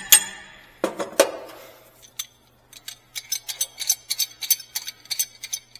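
Metal wrenches clinking against each other and against metal: a few sharp ringing clinks in the first second or so, then a run of quick light clicks, several a second.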